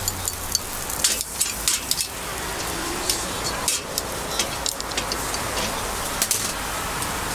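A metal pick clicking and scraping against cast-iron bungeoppang (fish-shaped bread) molds as they are worked, flipped and opened, a run of sharp clicks and clacks at uneven intervals. Under it runs a steady hiss of batter cooking in the hot molds.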